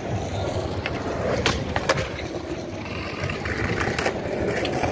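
Skateboard wheels rolling over rough concrete, with a few sharp clacks from the boards.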